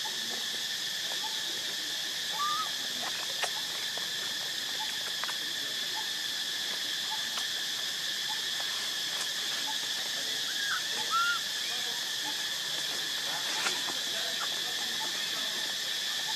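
Steady high-pitched drone of forest insects, several even tones holding without a break. A few faint short chirps and light clicks sound over it.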